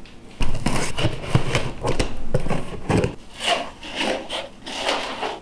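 Cardboard shipping box being opened: a dense run of rasping and scraping of tape and cardboard starts about half a second in, then several shorter scrapes as the flaps are pulled back.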